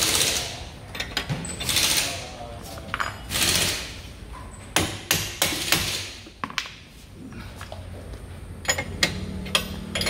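Metal tool clinks and scrapes as a bolt-type ball-joint separator and a wrench are handled and fitted to a front control-arm ball joint. There are a few short scraping sounds in the first half and a scatter of sharp clicks and knocks in the second.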